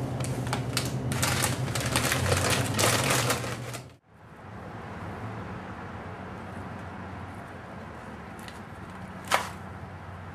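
Rapid clicking and clatter of goods being handled at a shop checkout, over a steady hum. After an abrupt cut about four seconds in, there is a quieter steady hum with a single sharp click near the end.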